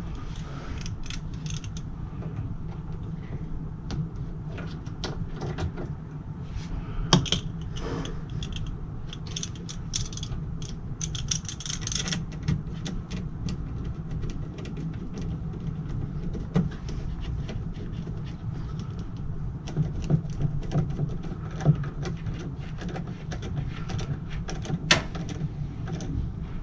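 Scattered clicks, knocks and rattles of hand tools and small fittings being handled, over a steady low hum.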